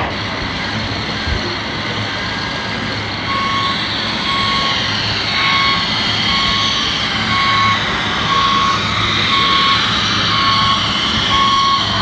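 Reversing beeper of a radio-controlled truck, sounding a steady series of short high beeps, a little over one a second, starting about three seconds in, over a continuous background hiss.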